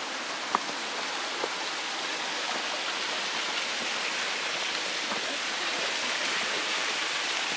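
Steady rain falling, an even hiss that grows slightly louder, with a couple of light taps in the first second and a half.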